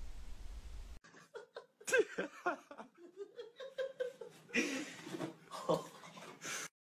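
A person laughing and giggling in short breathy peals, after about a second of low steady hum.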